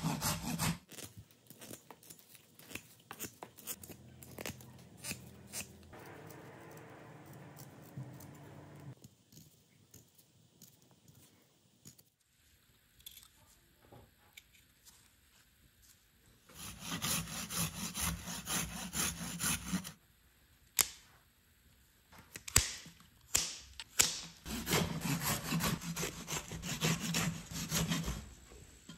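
Hand saw cutting through a small branch in quick back-and-forth strokes, in two runs of about three seconds each in the second half. Between the runs, quieter knife-shaving scrapes and scattered sharp clicks of wood.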